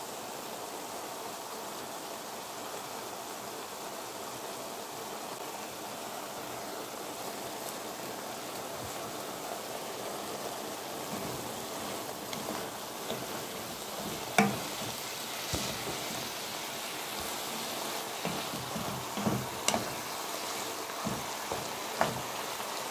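Minced beef-and-pork filling with vegetables sizzling steadily as it fries in a pan. From about halfway through, a wooden spoon stirs and scrapes the mixture, knocking against the pan several times.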